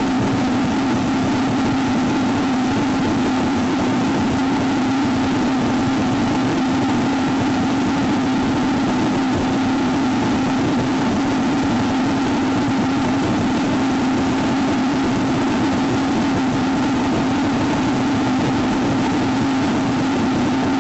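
Refurbished Saturn V F-1 engine gas generator firing in a hot-fire test: a loud, steady rush of rocket exhaust noise with a strong low drone underneath.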